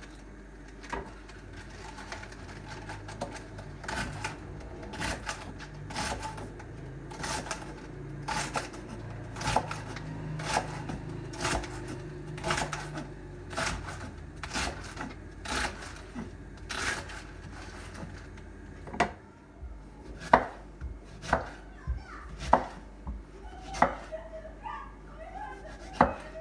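Kitchen knife chopping on a cutting board, sharp strokes about once a second, sometimes in quick pairs, over a low hum through the first half.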